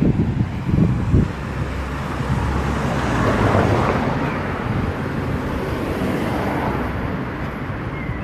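A car driving past on the street, its tyre and engine noise swelling to a peak about three to four seconds in and then fading away, over steady traffic noise. A few low thumps come near the start.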